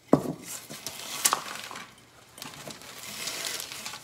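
Crisp dehydrated onion flakes crunching and crackling as a hand presses them down into a glass jar, with two sharp clicks, one at the start and one about a second in.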